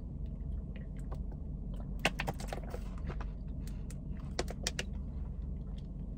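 Thin plastic water bottle crinkling and crackling in the hand while someone drinks from it: sharp clicks in a cluster about two seconds in and again a little past four seconds, over a steady low hum.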